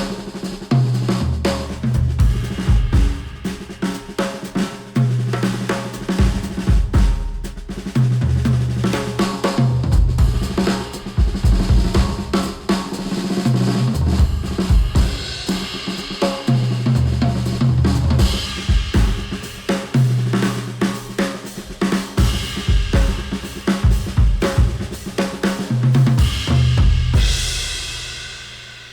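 Instrumental music with a drum kit and bass line, played back through open-back hi-fi headphones and picked up by microphones at the earcups. It fades out over the last two seconds.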